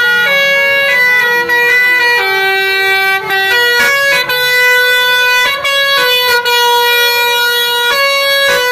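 Bus telolet horn, a Basuri multi-tone air horn, playing a tune: a run of loud held notes that step up and down in pitch, with short breaks between some of them.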